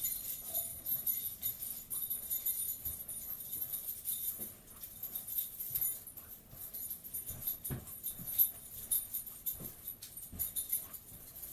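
A bunch of keys being shaken and jangled continuously, with a few soft low thumps scattered through.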